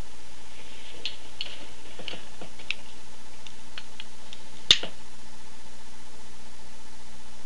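Scattered light clicks and taps from small objects being handled, then one sharp click about four and a half seconds in, over a steady background hiss and faint hum.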